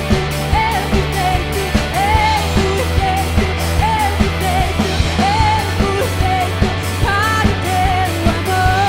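Live band music: drums keep a steady beat under a sustained bass, with a wavering melody line over them. Near the end the melody settles on one long held note.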